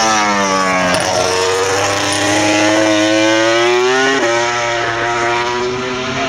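Racing motorcycle engine on the track, revving hard. The note dips, climbs for about three seconds, drops suddenly just after four seconds as it shifts up, then holds, with a lower steady engine note beneath.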